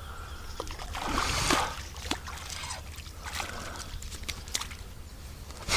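Water splashing and sloshing as two hooked carp are drawn in to the bank, with a louder splash about a second in and scattered small clicks of handling.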